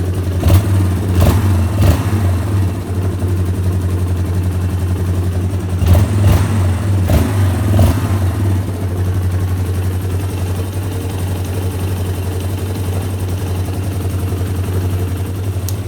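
Yamaha Raptor 350 quad's single-cylinder four-stroke engine running steadily at idle. There are several short, sharp louder moments about half a second to two seconds in, and again around six to eight seconds in.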